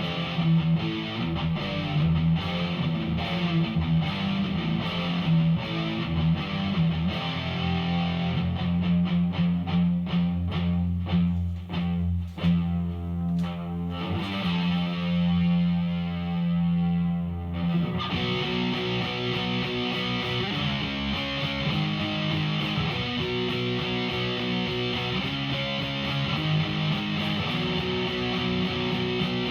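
Electric guitar played through a Behringer V-AMP PRO amp modeler on a distortion preset: a fast chugging riff, then a held chord that rings for a few seconds, then a new riff of changing notes starting about two-thirds of the way in.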